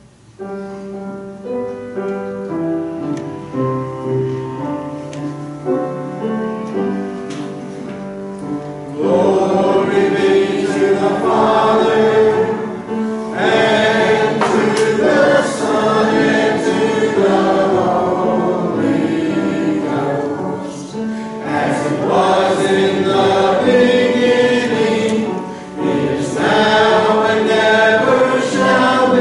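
Church congregation singing a hymn with accompaniment. It opens with a slow instrumental introduction of held chords, and the voices come in loudly about nine seconds in.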